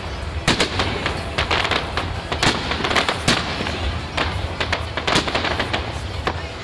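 Fireworks display: a rapid, irregular run of sharp bangs, roughly two a second, over continuous crackling and a low rumble from the shells bursting.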